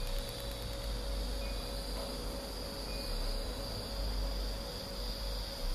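Insects trilling in one steady, unbroken high note, with a faint steady lower hum underneath.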